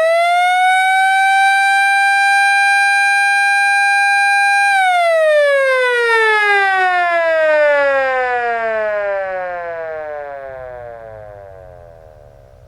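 Federal Sign & Signal Model L siren at full pitch, holding one steady tone for about five seconds, then released so its pitch slowly falls as it winds down and fades near the end. The steady tone is the siren's alert signal.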